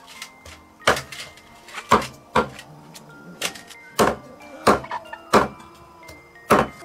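Meat cleaver chopping a whole chicken on a thick round wooden chopping block: about eight heavy chops at uneven intervals, starting about a second in.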